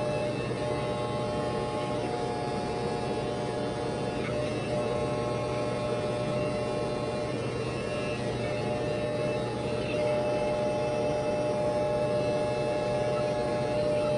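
Corded electric hair clippers buzzing steadily while cutting hair, a constant hum that gets slightly louder about ten seconds in.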